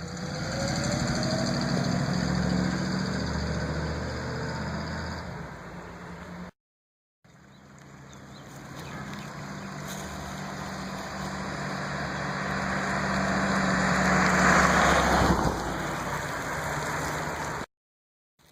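1946 Ford panel truck engine running, broken by two brief cuts. In the second stretch it grows steadily louder over several seconds, then falls off quickly about fifteen seconds in, as the truck drives past.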